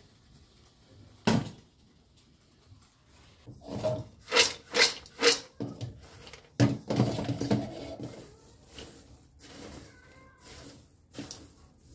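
Popcorn tossed and stirred in a stainless steel bowl: a sharp knock about a second in, then a run of loud rattling bursts as the bowl is shaken, and softer rustling as a hand mixes the kernels with cheese powder.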